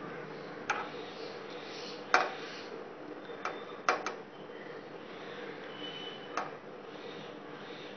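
Hands working marinade into small tapse fish on a plate, the fish and fingers knocking against the plate in about six sharp clicks, the loudest about two seconds in, over a steady low hum.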